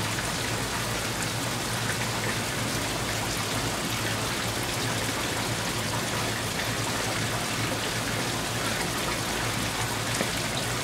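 Water falling into a koi pond, making a loud, steady splashing rush.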